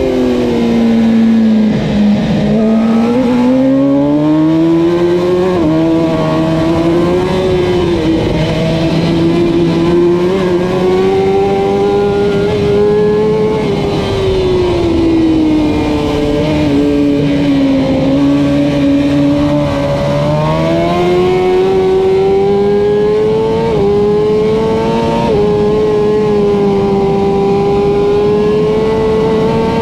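Kawasaki Ninja ZX-10R racing motorcycle's inline-four engine at race speed. The revs drop under braking near the start, then climb again, sag once more in the middle, and climb hard late on, with two quick upshifts about four-fifths of the way through before the note holds high.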